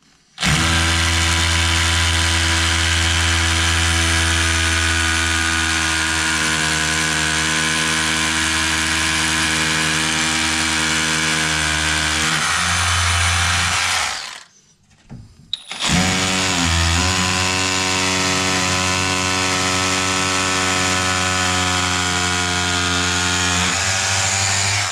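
Milwaukee M12 12-volt cordless SDS-plus hammer drills boring into concrete block. There are two long, steady runs: the first lasts about fourteen seconds, and after a brief pause the second carries on to the end.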